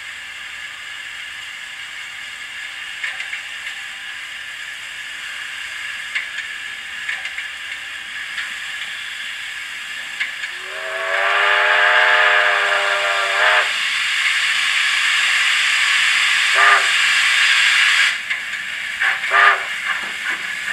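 Sound decoder in an HO scale model of a Victorian Railways J Class steam locomotive, playing DCC Sound's J Class steam sounds through its speaker while the model stands still. Steady steam hiss with a few faint clanks, then about ten seconds in a steam whistle blows for about three seconds over a louder rush of steam. Near the end come three short whistle toots: one, then two in quick succession.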